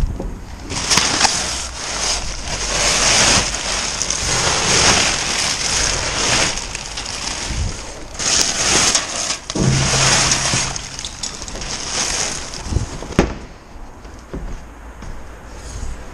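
Plastic bags and bubble wrap rustling and crinkling in irregular swells as hands rummage through them in a bin. Near the end there is a single sharp knock from a plastic wheelie-bin lid being handled, and the rustling dies down after it.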